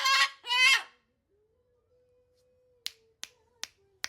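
A parrot gives a high-pitched two-syllable call in the first second. From about three seconds in comes a regular run of sharp clicks, about two and a half a second.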